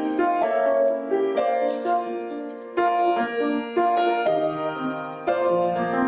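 Slow, gentle piano music: single notes and chords struck about once a second and left to ring.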